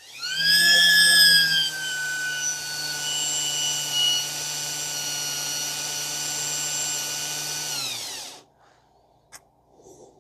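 Electric drill spinning a reel part while emery cloth polishes it. The motor whines up at the start, runs steadily for about eight seconds, then winds down and stops, with a few light clicks after.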